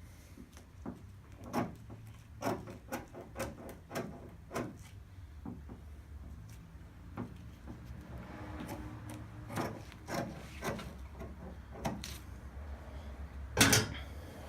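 Plastic squeegee being worked over a wet vinyl decal on a hood: a string of short rubbing, squeaking strokes, with one louder knock near the end.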